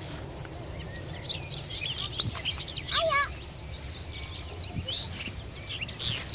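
Small birds chirping: many quick, high chirps overlapping, with a lower warbling call about three seconds in, over a steady low rumble.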